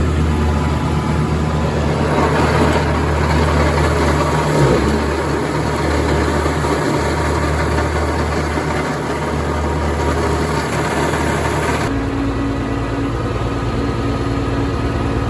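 Tractor engine running steadily with its PTO-driven mower. One tone in the engine note drops about five seconds in, and the sound changes abruptly near twelve seconds in.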